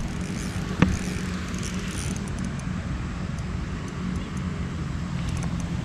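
A steady low engine hum, with one sharp click about a second in.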